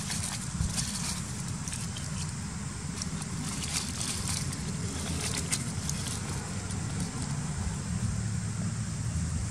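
Steady low background rumble with scattered light crackles and rustles, mostly in the first half, as leaves and dry debris are handled and moved on the ground.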